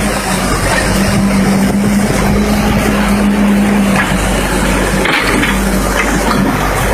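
A vehicle engine running steadily and loudly, with a steady hum that gives way about five seconds in.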